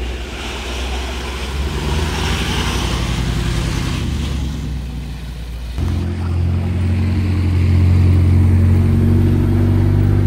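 Car engine running loudly, its pitch climbing gently in the first half. About halfway the sound changes abruptly to a louder, deeper, steady engine drone.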